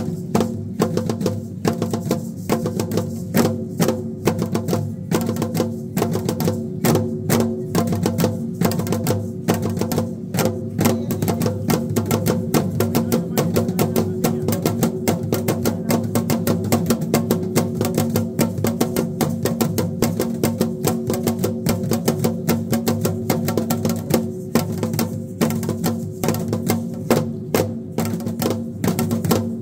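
Aztec ceremonial dance drumming: a fast, steady drumbeat with sharp, clicking strokes.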